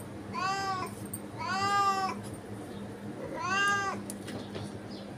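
Domestic cat meowing three times, each call rising and then falling in pitch, the middle one the longest.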